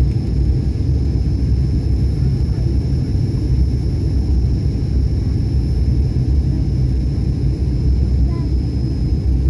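Steady loud low rumble of an airliner's cabin noise from its engines and airflow during the landing descent, with a thin, steady high whine above it.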